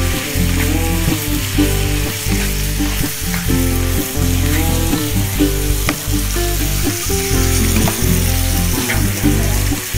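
Cubed beef and garlic sizzling in hot oil in a frying pan while a metal spatula stirs and turns it, scraping and clicking against the pan, over background music.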